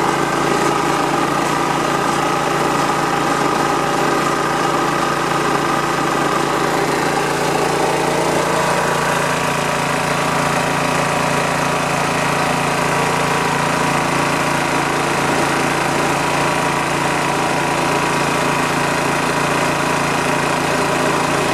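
Honda single-cylinder engine of a Rol-Air gas air compressor running steadily at an even speed, driving the compressor pump. The unit is repaired from a no-start and in working order.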